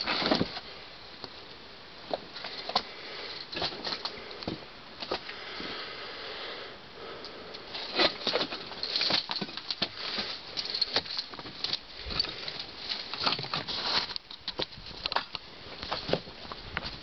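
Footsteps crunching irregularly over loose stones, rubble and dry scrub, with clicks and rustles from handling a handheld camera.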